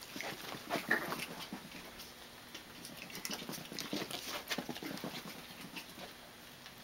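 Chihuahua puppy running on carpet: a quick, irregular patter of paw steps and scuffs.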